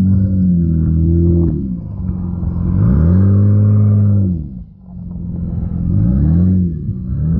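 Lifted Honda Ridgeline's 3.5-litre V6 working hard up a steep off-road climb, the revs surging up and falling back about three times. The engine note drops sharply about four and a half seconds in, then builds again.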